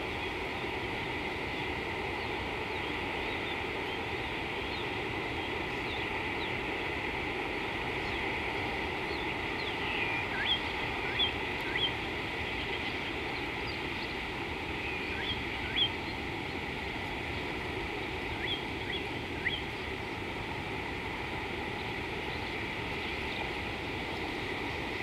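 Steady outdoor background hiss, with a few short, high bird chirps in small groups around the middle.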